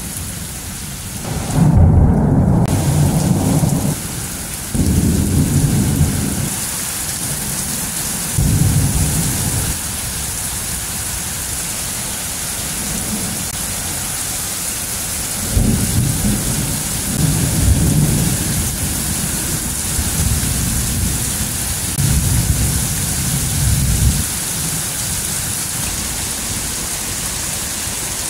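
Thunder rumbling in repeated low rolls over a steady hiss of rain. Several short rolls come in the first ten seconds, then a longer run of rumbling in the second half dies away a few seconds before the end.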